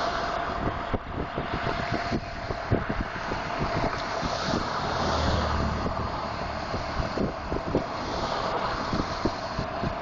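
Fire engine's diesel engine running as the truck pulls out of the station bay, a low rumble that swells about halfway through, with a steady high tone over it. Heavy wind buffets the phone's microphone.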